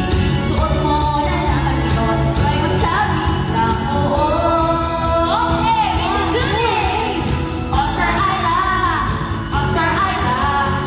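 A small group singing a Tagalog pop song together into microphones over a backing track.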